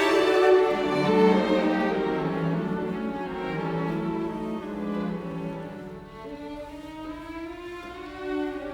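Background music of bowed strings, violin and cello, playing sustained notes that fade somewhat over the passage.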